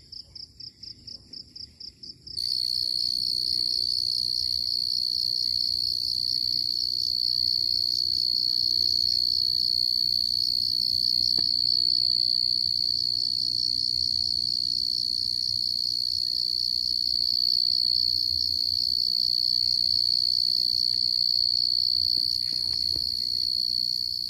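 Crickets trilling at night. At first it is a pulsed chirping of about four or five pulses a second. About two seconds in, a louder, steady high-pitched trill starts suddenly and carries on without a break.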